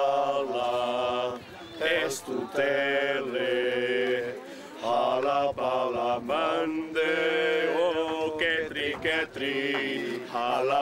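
A group of voices singing a slow, chant-like song in long held notes with vibrato, phrase after phrase with short breaks between them, over a low sustained note.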